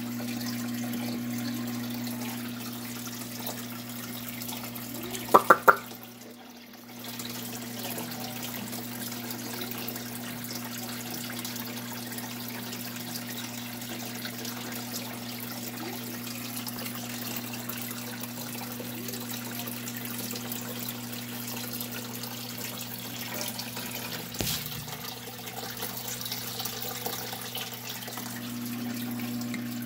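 Aquarium filter return running steadily, water trickling and splashing into the tank over a low pump hum. About five seconds in come three short, loud, high-pitched sounds in quick succession, and a single knock comes later.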